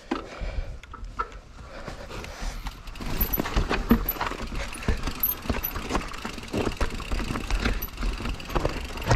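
A mountain bike being ridden over rough ground: many quick clicks, knocks and rattles from the bike, over a low rumble, all growing louder about three seconds in.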